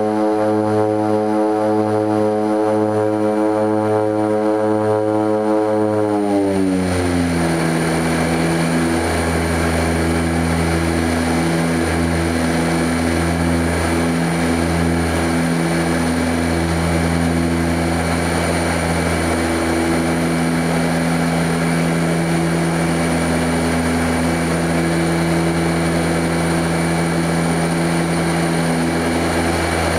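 Twin Otter's turboprop engines and propellers in a steady, loud propeller tone with a pulsing beat between the two propellers. About six seconds in, the pitch glides down as propeller speed is reduced after takeoff, leaving a lower steady drone with rushing air over it.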